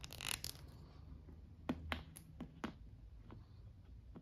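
A small plastic figure handled and set down on a tabletop: a brief rustle of hands near the start, then a handful of light clicks and taps as it is placed and adjusted.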